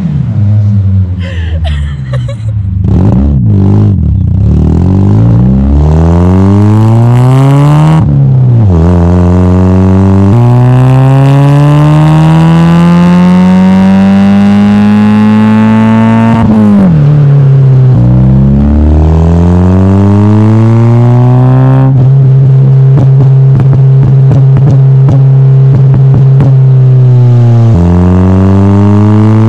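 Mitsubishi Lancer CE coupe engine through a cheap cannon-style aftermarket exhaust with the resonator removed, loud, revving up through the gears. The note climbs with each pull and drops at each gear change about eight, ten, seventeen and twenty-eight seconds in, holding a steady drone for several seconds before the last change.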